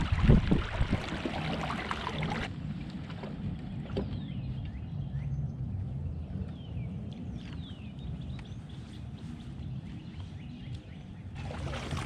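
Low wind rumble on the microphone, with a louder rush of wind for the first couple of seconds and again near the end. Faint bird chirps in the background through the middle.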